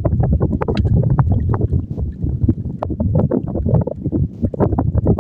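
Choppy water slapping and lapping irregularly against the hull of a small boat, over a heavy low rumble of wind on the microphone.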